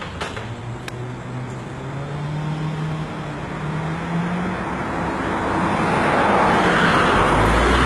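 Road traffic and a passing freight train blending into a steady rumble, with a low engine hum shifting in pitch. The noise grows louder and is loudest near the end, where a car passes close by.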